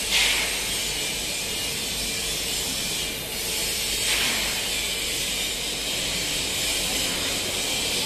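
Industrial conveyor-belt microwave dryer running: a steady hiss with a faint steady hum underneath, swelling briefly a few times.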